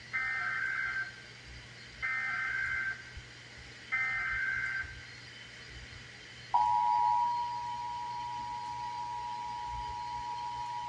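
Emergency Alert System SAME header: three one-second bursts of screeching digital data tones about two seconds apart, announcing a Required Monthly Test. About six and a half seconds in, the EAS two-tone attention signal starts, a steady harsh dual tone that is loudest at its onset and holds on.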